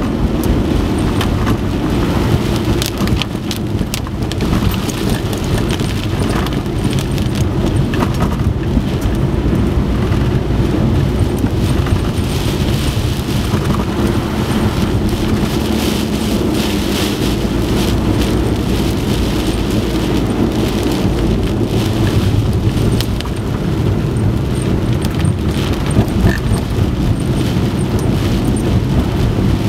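Heavy typhoon rain pelting down, a loud steady wash of noise with a low rumble beneath and frequent sharp hits of drops striking a surface.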